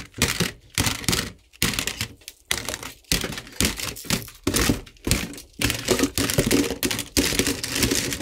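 Plastic toy guns clattering and knocking against each other and the cardboard box as a hand rummages through the pile: a fast, irregular run of knocks and rattles.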